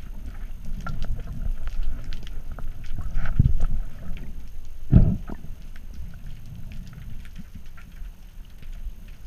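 Muffled water noise heard through a GoPro's waterproof housing while snorkelling: a low rumble of moving water with scattered small clicks, and one louder thump about five seconds in.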